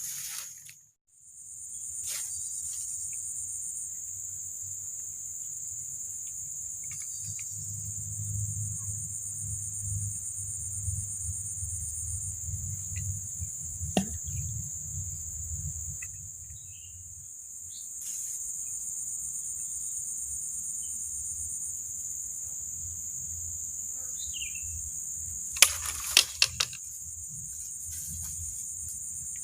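Steady high-pitched chorus of insects, typical of crickets, over a low rumble. A few sharp clicks come in a quick cluster near the end.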